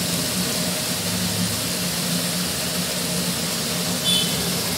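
Vegetables and masala sizzling in a kadai as they fry, a steady hiss over a constant low hum, with a light spatula scrape near the end.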